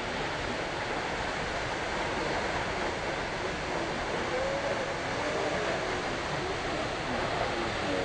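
Steady rushing of a tall waterfall, an even, unbroken noise of falling water.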